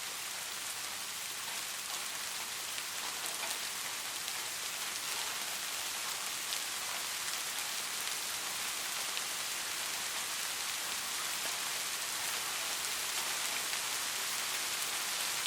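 Gentle rain falling steadily: an even hiss with faint scattered drop ticks.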